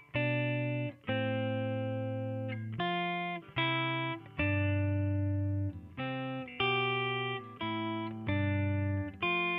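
Background music: a guitar playing a sequence of chords, each struck and left to ring before the next, about ten chord changes in all.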